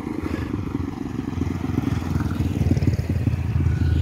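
Small motorbike engines, a motorcycle with a passenger sidecar and a second motorbike, running as they approach and pass close by. The engine sound builds steadily and is loudest near the end as they go past.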